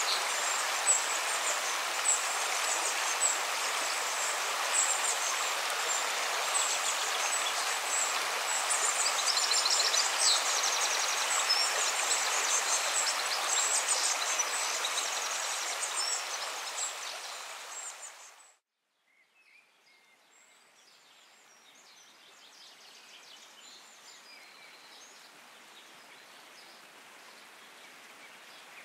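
A shallow rocky stream running steadily, with high, rapid chirping above it. The sound fades out about two thirds of the way through, and after a brief silence only a much fainter outdoor background remains.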